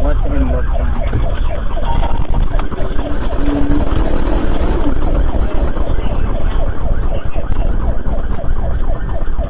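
Police siren sounding over a heavy, steady low rumble of engine and road noise.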